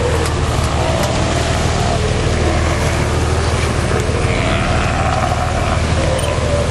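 Boat engine running steadily at a constant low hum, with a hiss of water and wind over it.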